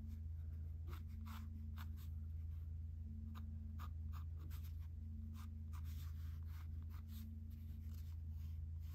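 Short, irregular scratching strokes of a drawing tool on a portrait sketch, several a second, over a steady low hum.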